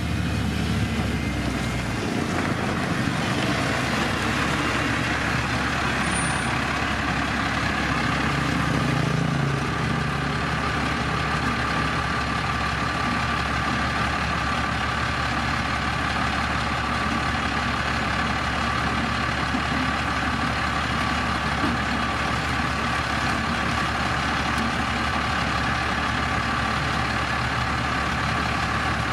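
Heavy diesel road machinery working gravel, its engine running steadily with a low hum and a faint steady whine.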